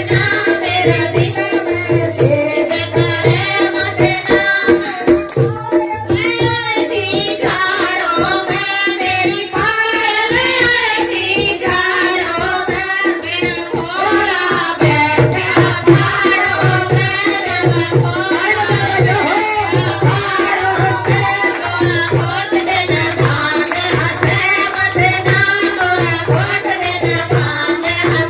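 A woman sings a Hindu devotional bhajan over the steady beat of a dholak drum. A group claps in time throughout.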